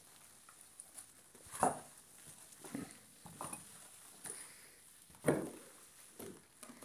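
Footsteps crunching and scuffing over rubble and debris on a concrete floor, about one step a second, two of them heavier than the rest.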